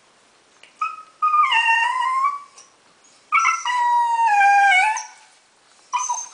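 Dachshund howling at a high pitch: a short call, then two long wavering howls of about one and nearly two seconds, and another short call near the end.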